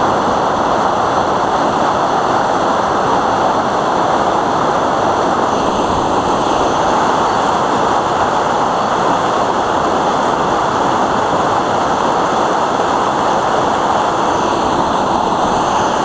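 Loud, steady rush of a waterfall on a mountain stream swollen with snowmelt. The water noise is unbroken and even throughout.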